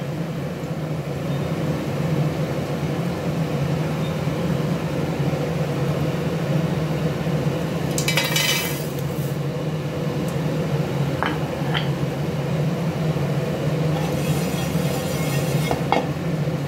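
Whole coriander seeds, cumin seeds and dried red chillies poured from a glass dish into a dry nonstick frying pan: a short rattle of seeds hitting the pan about halfway through, then a couple of light clicks and a longer, softer rustle of seeds near the end. A steady low hum lies underneath.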